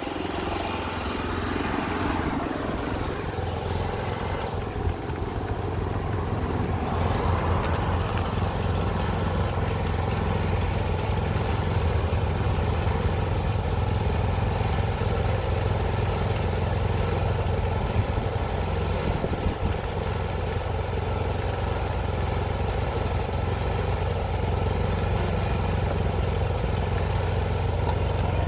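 Small engine of a cabbage transplanter running steadily with a low hum and some clatter.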